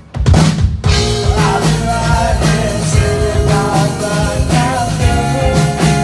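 Live rock band of drums, electric guitars, bass and lead vocals playing a song. The band crashes back in with a loud hit about a quarter second in, and singing comes in about a second and a half in.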